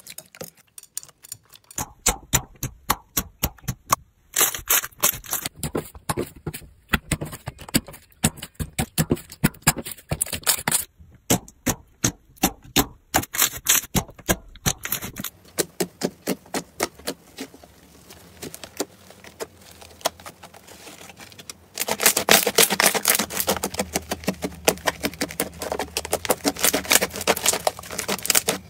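Slime being squeezed, pressed and stretched by hands, giving rapid crackling and popping clicks. The crackling changes with each slime and turns denser and louder for the last several seconds.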